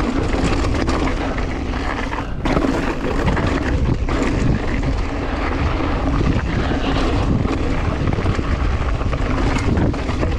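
Mountain bike descending a rocky trail at speed: wind rushing over the GoPro's built-in microphone, with the bike clattering over rocks in many small knocks.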